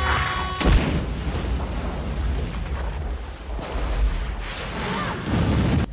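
A heavy boom less than a second in, followed by continuous loud rumbling, like an explosion or eruption sound effect.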